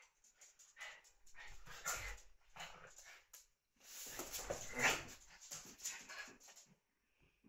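Small dogs playing together, making dog vocal sounds in an uneven run of bursts, loudest a little before the five-second mark, then stopping shortly before the end.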